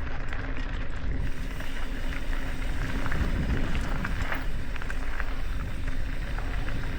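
Mountain bike rolling over a rocky trail: tyres grinding over rock with scattered short knocks and rattles from the bike, over a steady low rumble.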